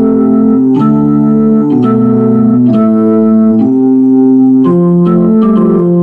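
Music: loud, sustained keyboard chords that change about once a second.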